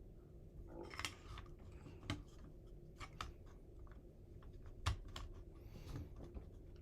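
Quiet, irregular clicks and taps of metal gun parts being handled as the buffer and recoil spring are fitted back into an AK-pattern pistol, with one louder click about five seconds in.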